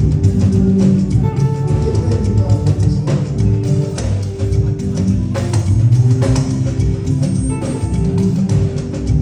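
Live band playing during a sound check: drum kit with frequent sharp hits over a steady bass line, with guitar.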